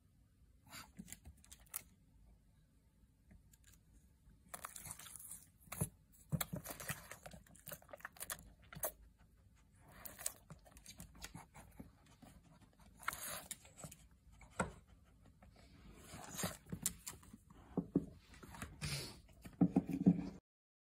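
A pug crunching and chewing a freeze-dried venison treat: irregular spells of crisp crunching and crinkling, with a louder rubbing rustle near the end.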